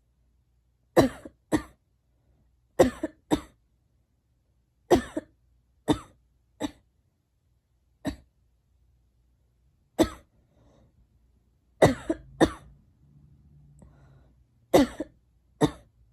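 A girl coughing repeatedly: about a dozen short, sharp coughs, some single and some in quick pairs, a second or two apart.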